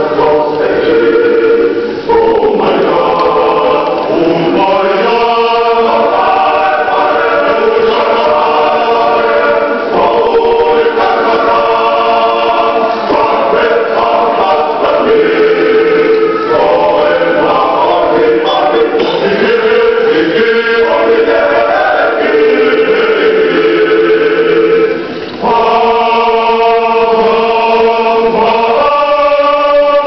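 Choir singing a hymn together in several voice parts, with a short break between phrases near the end.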